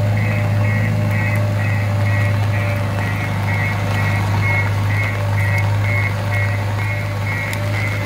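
JCB 3DX backhoe loader reversing: its diesel engine running steadily while the reverse alarm beeps about twice a second.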